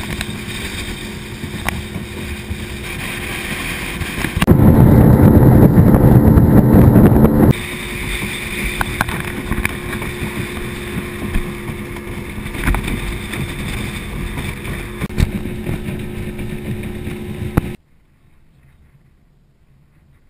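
Outboard motor of a 17-foot Maverick skiff running at speed, with the rush of wind and water. About four seconds in, a much louder wind rush hits the microphone for about three seconds. Near the end the sound drops suddenly to a faint hush.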